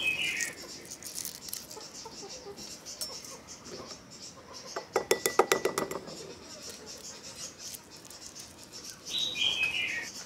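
Boiled quail egg shells crackling as fingers peel them. About five seconds in there is a quick rattle of clicks lasting about a second, as a hand picks through a glass bowl of quail eggs and the eggs knock against each other and the glass. A bird's short falling chirp comes at the start and again near the end.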